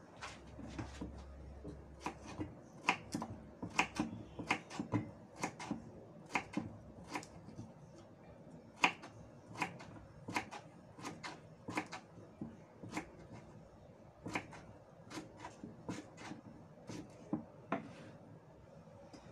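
Soup boiling in a stainless steel pot under a glass lid, giving irregular sharp clicks and taps, about two or three a second.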